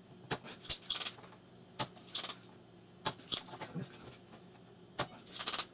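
Irregular small clicks, taps and short scraping rustles of hands and tools working on an opened mixer's circuit board and faders.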